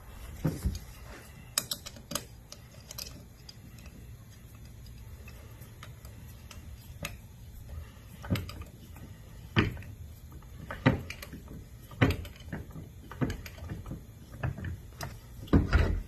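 Hard plastic parts of a Flex Drive kayak pedal drive being handled and fitted by hand: irregular clicks and knocks, with the loudest knocks near the end.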